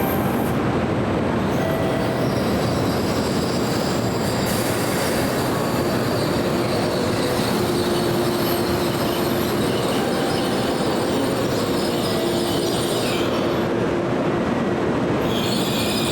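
Tokaido Shinkansen train moving along the station platform: a steady rush of running noise with thin squealing tones over it.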